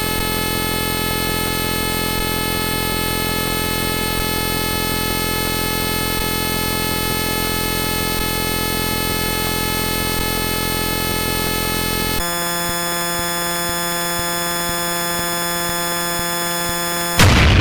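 A dense cluster of many steady synthesized tones held together as one harsh, buzzing chord. About twelve seconds in it switches abruptly to a thinner chord of fewer tones, and near the end a loud noisy explosion-like blast cuts in.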